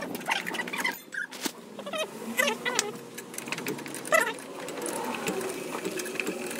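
Hand socket ratchet wrench clicking in quick runs as bolts at a scooter's rear wheel and exhaust are turned, with squeaks of metal on metal.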